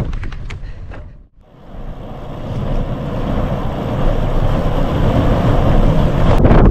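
Wind buffeting the microphone, a heavy rumbling noise. It fades out to near silence a little over a second in, then swells back up and stays loud.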